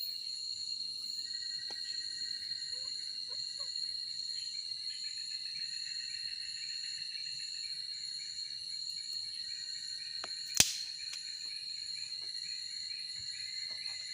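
Night-time forest insects, crickets and similar, trilling steadily at several high pitches. One sharp snap stands out about ten and a half seconds in.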